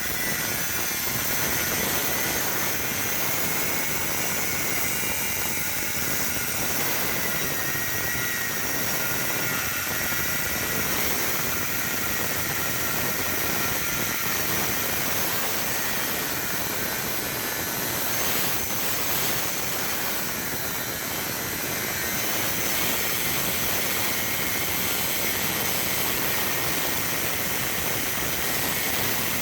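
Electric arc welding on a broken steel leaf spring: the rod's arc gives a steady, dense crackle and hiss, with a faint whine from the welding machine.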